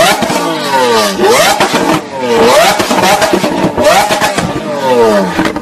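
Lamborghini Aventador's V12 engine being revved, its pitch shooting up and falling away slowly about four times.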